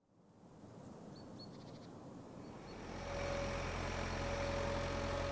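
Tracked snow groomer's engine running, growing louder about three seconds in to a steady low hum with a higher whine over it. A few short high chirps are heard before it.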